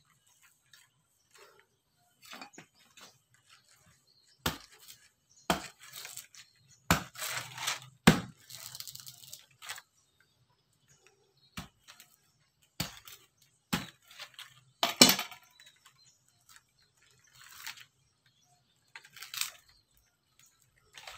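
Dry coconut husk being pried and torn away from a sprouted coconut with a machete blade and by hand: irregular sharp cracks and knocks, with rough tearing of coir fibre between them.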